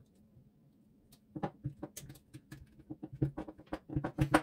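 Parts of a Parkside PSTK 800 D3 jigsaw being handled and fitted back into its plastic housing during reassembly: a run of irregular clicks and light knocks that starts about a second and a half in.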